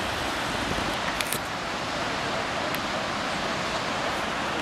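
Steady rushing of a fast mountain river's white-water rapids, an even roar without a beat.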